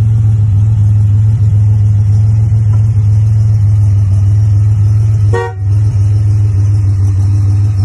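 Buick Grand National's 3.8 L turbocharged V6 running steadily with a low, even hum. A single short car-horn toot sounds about five and a half seconds in.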